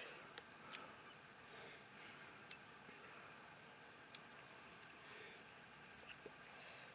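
Faint insect chorus making a steady high-pitched drone, with a few soft clicks scattered through as a pistol is handled.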